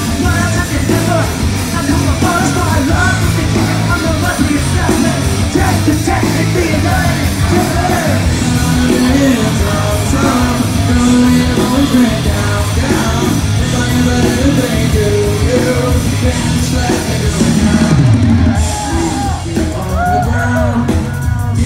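A rock band playing loud and live, with a lead vocalist singing over guitars, bass and drums, recorded from inside the crowd on a phone's microphone.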